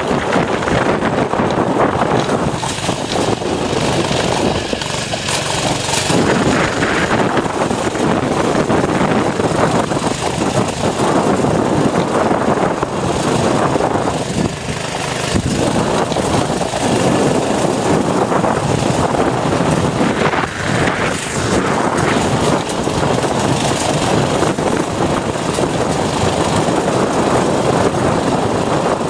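Mini bike's small engine running under throttle while riding, mixed with wind noise on the helmet-mounted microphone. The sound dips briefly a few times as the throttle eases off.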